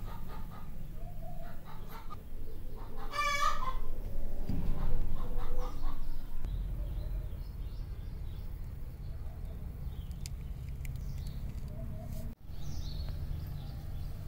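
Fowl calling in short, scattered clucks over a low steady rumble, with one louder call about three seconds in.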